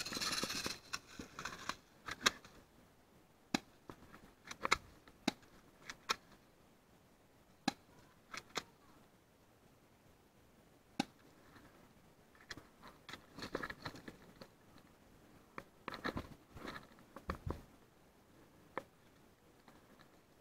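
Rustling of dry leaf litter and clothing as a person shifts and moves, heaviest at the start and in two short spells in the second half, with single sharp clicks and snaps scattered at irregular intervals.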